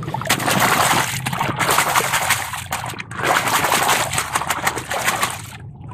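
Plastic toy tanker truck swished by hand through muddy water, splashing and sloshing in three spells with short breaks between.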